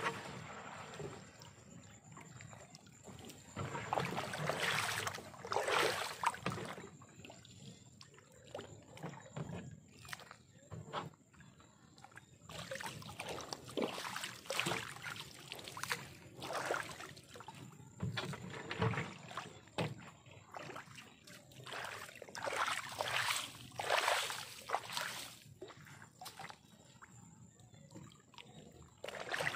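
Shallow, weedy pond water sloshing and splashing in irregular bursts of a second or two, stirred by a person working in it.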